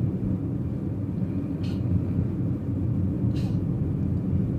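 Steady low rumble of a moving vehicle, engine and road noise heard from on board.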